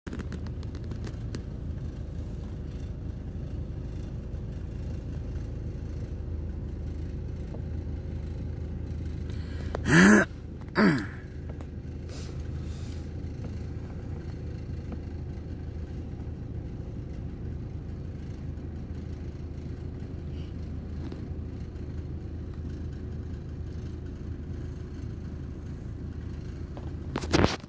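Steady low rumble of a car running, heard from inside the car. Two short, loud vocal bursts come about ten seconds in, and another brief loud burst comes near the end.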